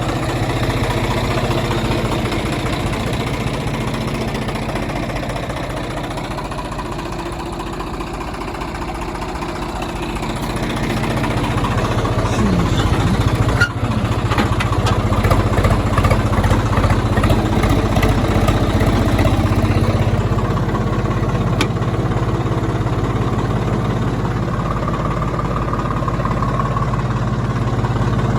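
Swaraj 855 diesel tractor engine running steadily, then pulling harder and louder from about eleven seconds in.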